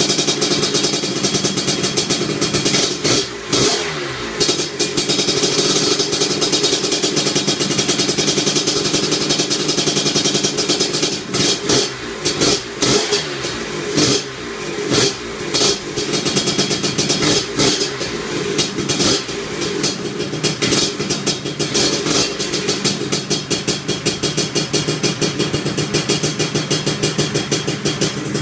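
Lambretta scooter with a TS1 225 two-stroke kit engine and 30 mm Dellorto carburettor, running on its first start-up. It runs steadily, with bursts of throttle blips a few seconds in and again around the middle, the revs rising and falling back between them.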